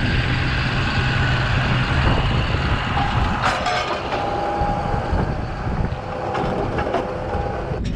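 Farm tractor running steadily under load, with a low, even engine hum, joined about three seconds in by a faint steady whine.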